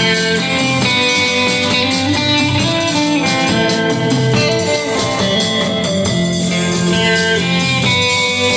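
A band playing a guitar-led instrumental live: guitar carrying the melody in sustained notes over bass and drums.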